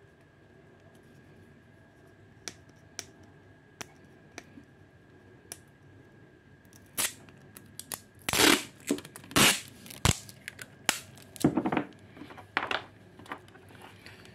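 Roll of clear packing tape: a fingernail picking at the tape end with a few light clicks, then from about seven seconds in a run of loud rips as lengths of tape are pulled off the roll.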